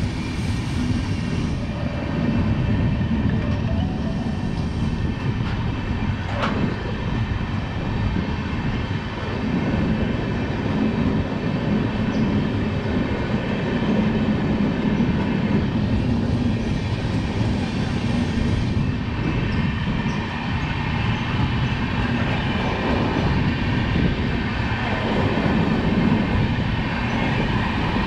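Passenger train rolling past at a crawl: a steady rumble of wheels on rail with a continuous hum, and one sharp click about six seconds in.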